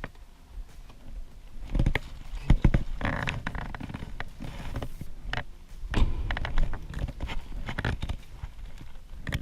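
Irregular knocks, clicks and rustling, like footsteps and things being handled close to the microphone.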